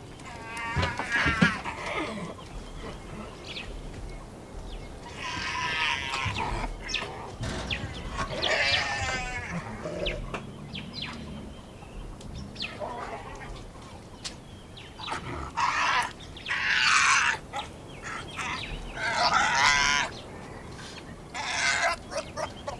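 Spotted hyenas giving high, bleating giggles and squeals, each burst lasting about a second and repeated every few seconds, while they feed on a carcass. Short clicks and cracks sound between the calls.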